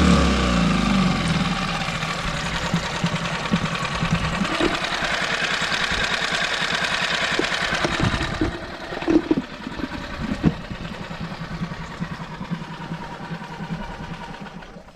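Mariner 6 hp single-cylinder four-stroke outboard motor running. It is throttled back in the first second, then holds a steady speed. After about eight seconds it runs noticeably quieter, with a few sharp knocks.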